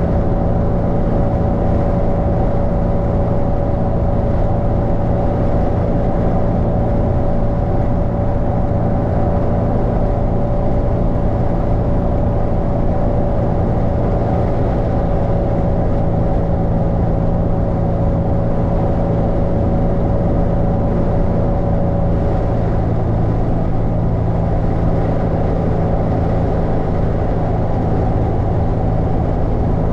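Steady in-cabin road and engine noise from a car cruising at highway speed: a constant low drone with a few steady hums over it.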